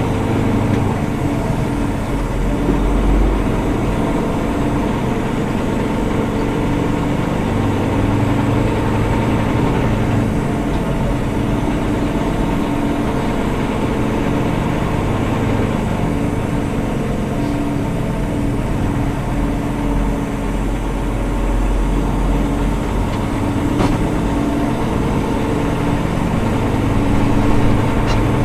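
Semi truck's diesel engine running steadily at low speed, heard from inside the cab as the truck pulls slowly away.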